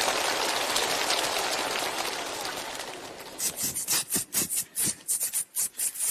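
Audience applause dying away over the first three seconds. Then, about three and a half seconds in, vocal percussion starts: quick, sharp mouth clicks and hisses, several a second, beatboxed as accompaniment.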